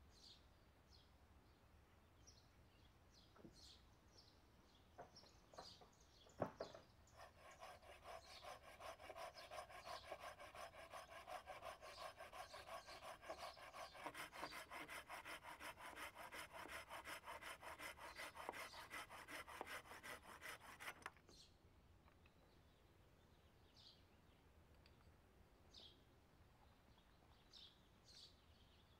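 Hand saw cutting through a green, bark-covered log in quick, even back-and-forth strokes that stop abruptly after about fourteen seconds. A single sharp knock comes just before the sawing starts.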